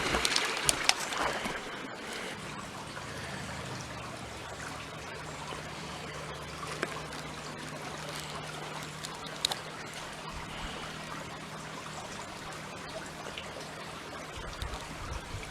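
Small woodland brook running with a steady trickling rush of water. There are a few sharp clicks in the first second or so, and a faint steady low hum underneath from about two seconds in.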